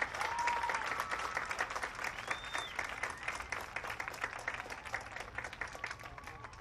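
Crowd in the stadium stands applauding, with a couple of rising-and-falling whistles; the clapping slowly dies away toward the end.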